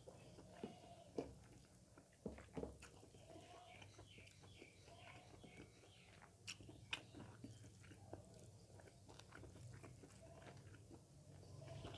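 Faint close-up eating sounds: fingers working rice and pork gravy on a steel plate, soft wet squishing with chewing, and a few sharp clicks scattered through.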